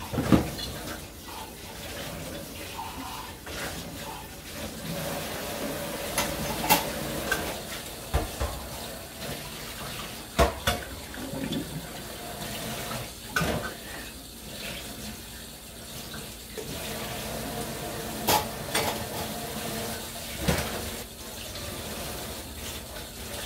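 Water running from a kitchen faucet into a stainless steel sink while a glass is washed with a bottle brush, with dishes clinking and knocking against the sink now and then.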